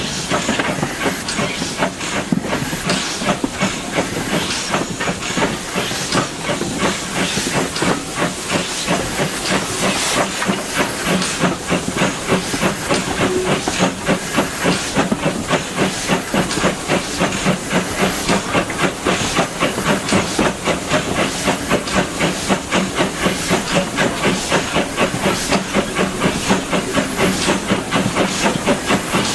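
Steam locomotive, the LB&SCR A1 'Terrier' 0-6-0T, working a train: a rapid, even rhythm of exhaust beats over a steady hiss of steam, heard from the train.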